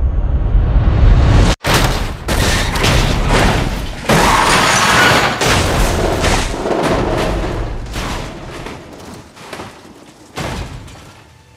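Film-style race-car crash sound effects: a low rumble cuts off suddenly, then a string of heavy booms and crunching impacts as the car tumbles. The crashing slowly dies away, with one more thud near the end.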